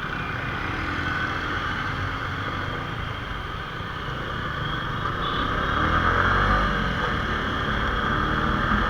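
Suzuki Gixxer motorcycle's single-cylinder engine running on the move, mixed with steady wind and road noise on a bike-mounted action camera's microphone; it grows louder about six seconds in.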